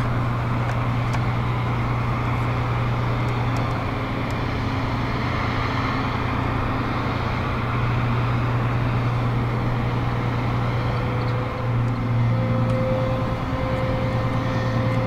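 Steady low drone of a cargo ship's deck machinery as its crane hoists a railcar off the quay. A higher steady hum joins about twelve seconds in.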